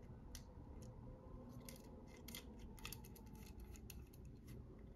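Faint, scattered clicks and taps of small lightsaber hilt parts being handled as the dummy switches are fitted into the hilt.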